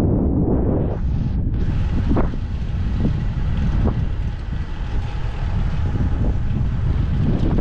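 Wind rumbling on the microphone of a camera riding along on a fixed-gear bicycle, with a few short knocks about two, three and four seconds in.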